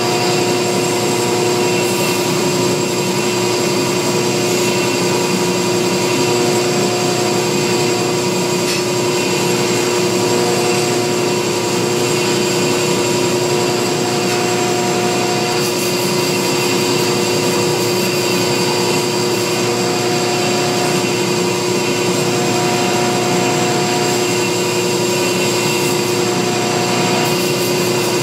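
Homemade KMG-style belt grinder with a small-wheel attachment running steadily while the inside of a hardened, tempered steel adze is pressed to the belt on the small wheel and ground clean.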